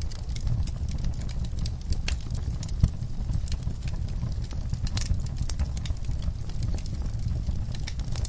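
Wood fire in an outdoor firepit crackling, with scattered irregular sharp pops over a steady low rumble; one louder pop about three seconds in.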